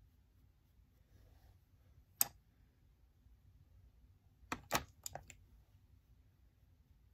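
Sharp clicks of small hard makeup items being handled: one click about two seconds in, then a quick cluster of four or five clicks a little over two seconds later.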